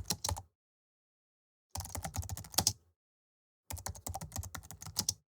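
Rapid clicking like typing on a keyboard, in three short bursts with dead silence between them.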